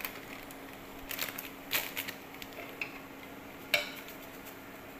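Wooden chopsticks stirring boiling cassava leaves in an aluminium pot, with a few sharp clicks and knocks against the pot, the loudest nearly four seconds in. A steady low hum from the induction cooker runs underneath.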